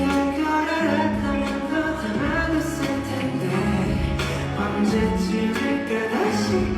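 Pop music with singing: long held vocal notes over an instrumental backing.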